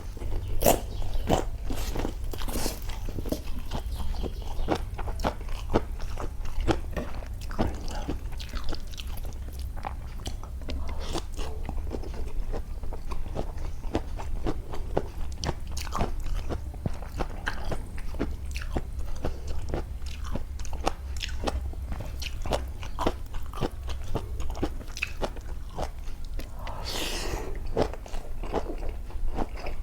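A person chewing and biting food close to the microphone, a dense run of small wet crunchy clicks, over a steady low hum. Near the end there is a brief louder rush of noise.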